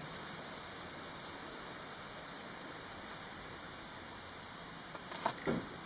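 Outdoor background hiss with a faint, high, short chirp repeating a little faster than once a second. A few short clicks and rustles come near the end.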